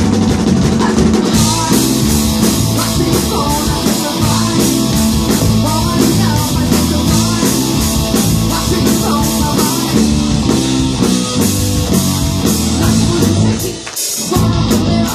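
Live rock band playing: electric guitars, bass and drum kit, with a woman singing. Cymbals come in about a second in, and the band drops out briefly near the end before picking up again.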